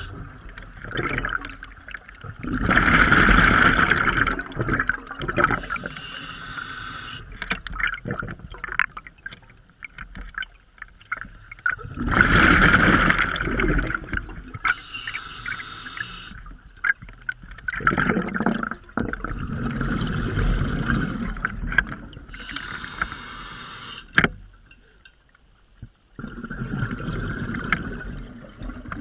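Scuba diver breathing through an open-circuit regulator underwater: a hissing inhale followed by a loud rush of exhaled bubbles, repeating about every eight seconds. A single sharp click sounds once near the end.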